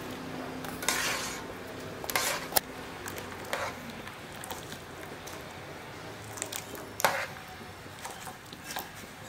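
Kitchen handling of a plastic colander full of drained larvae: a handful of short, scattered clatters and squishes, the loudest about a second in and again about seven seconds in. A faint low hum fades out about four seconds in.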